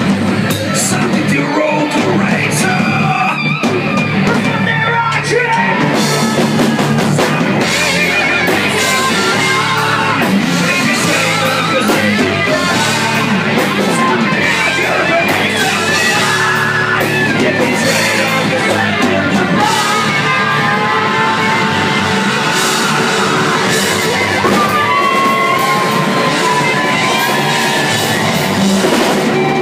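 Rap metal song: electric guitar and drum kit playing loud and dense, with shouted vocals over them.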